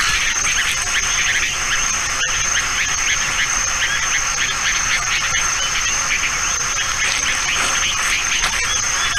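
A dense chorus of calling insects: a steady high shrill with many rapid, overlapping chirps beneath it, unbroken throughout.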